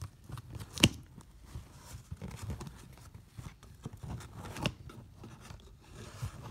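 A cardboard shipping box being cut and torn open with scissors: scattered scraping, tearing and rustling of packing tape and cardboard. A sharp click about a second in is the loudest sound, and there is another near five seconds.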